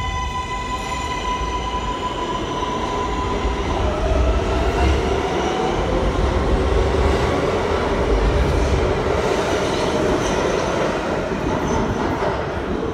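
Kawasaki R143 subway train accelerating out of the station. Its traction motors hold a steady high tone for the first few seconds, then the cars rumble and clatter past on the rails under a rising whine. The noise eases slightly near the end as the last car pulls away.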